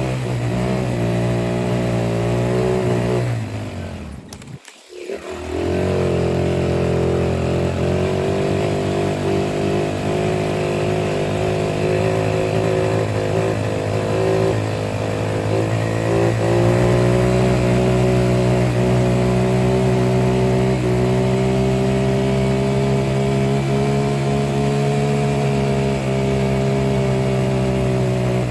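A motor vehicle's engine running steadily, with a brief dropout about four to five seconds in.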